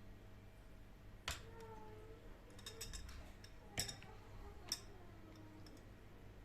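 A few light clicks and knocks of objects being handled, three of them louder, about a second in, near the middle and a second later, with faint ringing between.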